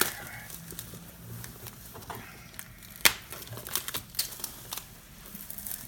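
Plastic shrink-wrap crinkling and tearing as it is peeled off a factory-sealed cardboard box, with scattered crackles and a sharp click about three seconds in.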